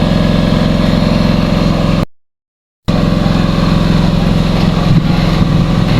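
An engine idling steadily. The sound cuts out completely for under a second about two seconds in, then returns unchanged.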